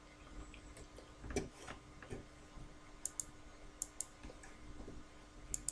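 A few faint, sharp clicks, spaced irregularly, over quiet room tone with a faint steady hum.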